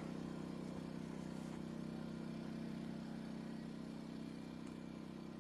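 Steady, unchanging mechanical drone of a running engine, an even low hum that makes it hard to hear.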